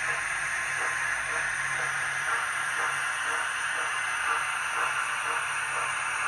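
Model BR 9F steam locomotive hauling a long rake of open wagons along the layout: a steady running noise of wheels and motor on the track, with faint regular beats about twice a second.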